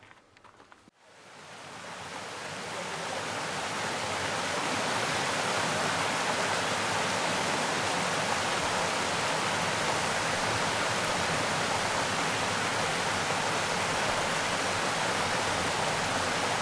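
Steady rush of running water, like a stream or small waterfall, coming in gradually after about a second of near silence and then holding even.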